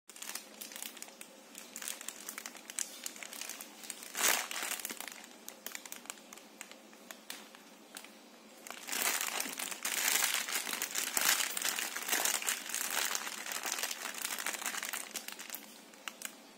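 Clear plastic wrapping crinkling and crackling as hands handle and pull open packaged squishy toys. There is a brief louder crackle about four seconds in and a longer, louder stretch of crinkling from about halfway through.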